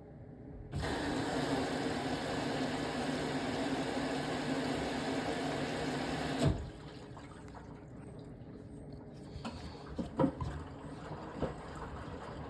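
Beko BM3WT3741W washing machine taking in water: a steady rush of water starts suddenly about a second in, runs for about six seconds and cuts off with a click as the inlet valve shuts. Afterwards the machine runs quietly with a few light knocks near the end.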